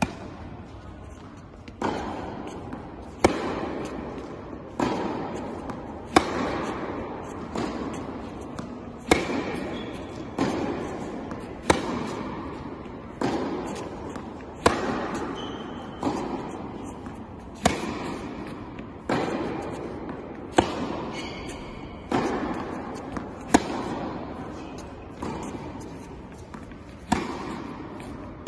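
Tennis balls struck with a racket during a baseline hitting session, a sharp hit about every one and a half seconds. Each hit echoes through a large indoor tennis hall.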